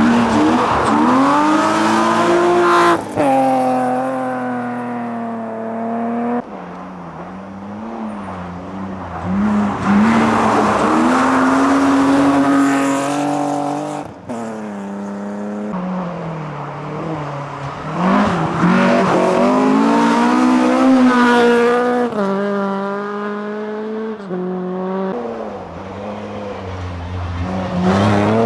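Historic rally cars passing one after another at full throttle on a snowy stage, their engines revving high, the pitch climbing and dropping with each gear change.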